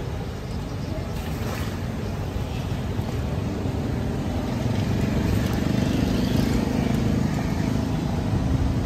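Road traffic: a steady low engine rumble that grows louder about five seconds in, as a vehicle passes close.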